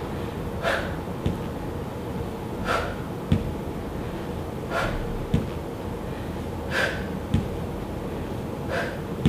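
A woman breathing hard into a close headset microphone while doing lunges with dumbbells, one heavy breath about every two seconds in time with each repetition. A soft low thump follows each breath.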